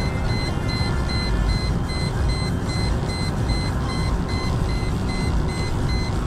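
Inside the cabin of a Mercedes-Benz E240 at high speed: a loud, steady rush of engine, tyre and wind noise, with a high electronic beep repeating about three times a second.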